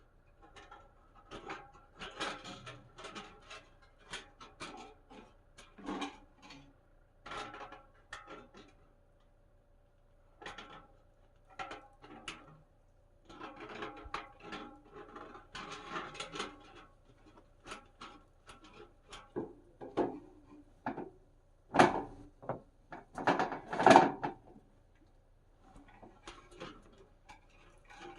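Sheet-metal wood-stove flue pipe being handled and worked on: an irregular run of clanks, knocks and scraping, with short pauses, and the two loudest knocks a couple of seconds apart near the end.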